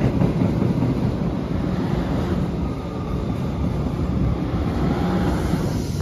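MBTA Blue Line electric train running along the track beneath and away, a steady rumble of wheels on rail that eases off slowly.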